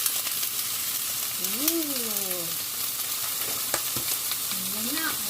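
Squid sizzling as it fries in hot olive oil with sautéed ginger, garlic and onion: a steady sizzling hiss, with a single sharp tap a little past halfway.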